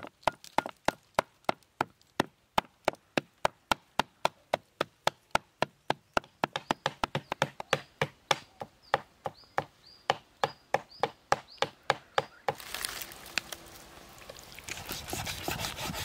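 Large knife chopping raw pork into mince on a wooden chopping block: a steady run of sharp chops about three to four a second, quickening slightly partway through. The chopping stops abruptly near the end and gives way to a few seconds of softer handling noise with faint knocks.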